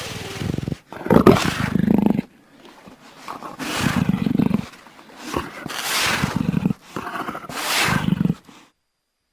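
Jaguar roaring: a series of about five hoarse, rasping calls, each about a second long, that stops shortly before the end.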